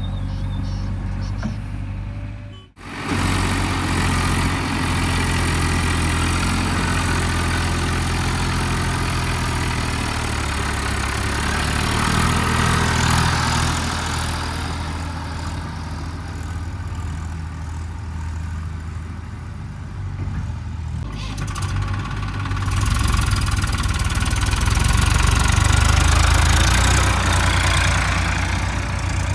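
JCB 3DX backhoe loader's four-cylinder diesel engine running, swelling in level twice as it works under load while digging and loading soil. There is a brief break in the sound about three seconds in.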